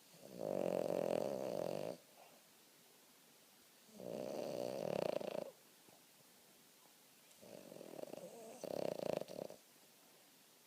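Boston terrier snoring in its sleep: three long rasping snores, roughly one every four seconds, with quiet between breaths; the third is rougher and breaks in two.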